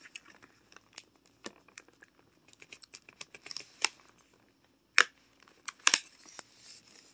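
Fingers prying at a cardboard advent calendar door and handling its clear plastic tray: scattered clicks and crinkles, the sharpest a few about five to six seconds in.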